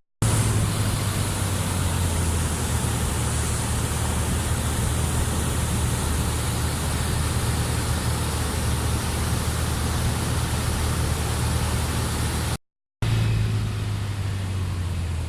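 A vehicle engine idling with a steady low hum under a steady even hiss, with a brief dropout near the end.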